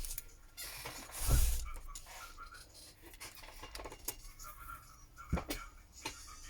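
Handling noise from working on a Samsung Galaxy S10 on a bench: a scraping rustle with a dull bump about a second in, then a few scattered sharp clicks and taps as parts are pressed and fitted into place.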